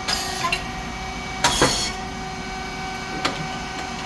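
Rice cake popping machine running: a steady hum from its motor, hydraulic pump and fan, with a few clicks near the start and a short, sharp hiss about a second and a half in.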